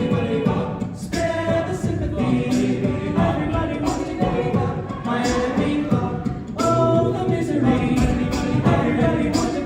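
A cappella group singing in layered harmony with a steady beat.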